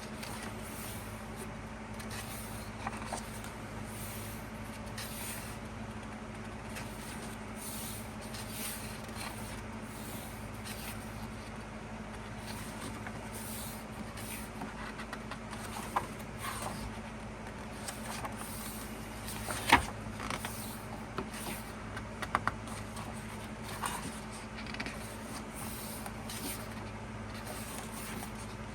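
Glossy photo book pages being turned and handled: soft, irregular paper rustles with a few sharper taps, over a steady low electrical hum.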